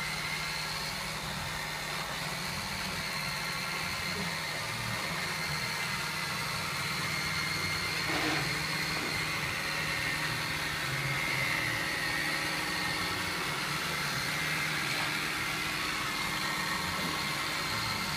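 Makita RC200DZ cordless robot vacuum cleaner running across a hard tile floor: a steady whir of its suction fan and drive motors with a high whine over it.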